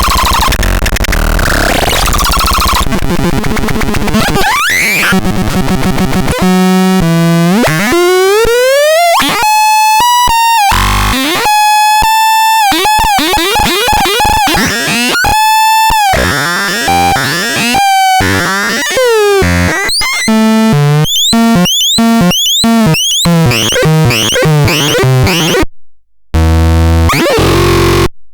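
Synthesized electronic sound effects from the CBX 6013E: a noisy jumble, then rising pitch sweeps and held buzzy tones broken by short gaps, a falling sweep, and fast stuttering beeps. The sound cuts out briefly twice near the end.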